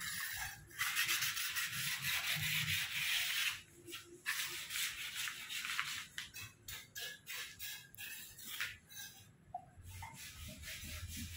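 Hand-sanding of a concrete column: continuous rubbing of abrasive on the surface in two long stretches of about three and two seconds, then shorter scattered strokes in the second half.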